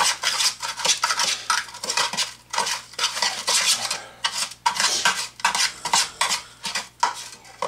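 A utensil scraping and clinking in a metal loaf pan in quick repeated strokes, stirring panko breadcrumbs through melted butter.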